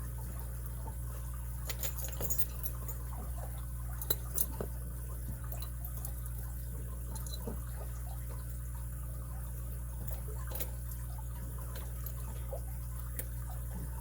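Faint, scattered small clicks and taps of lock-picking tools being handled in and around a brass padlock keyway, the strongest a pair about four seconds in, over a steady low hum.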